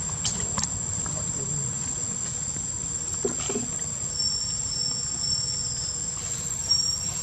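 Insects outdoors droning in one steady high-pitched note, with a second, slightly lower note joining from about four seconds in. A low rumble sits underneath, with a few faint clicks.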